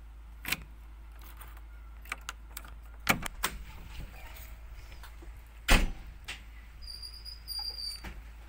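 Key turning in the cab door lock of a JCB 3DX backhoe loader, then a series of sharp metal clicks and clunks as the door latch releases, the door swings open and the operator climbs into the cab; the loudest clunk comes a little past halfway.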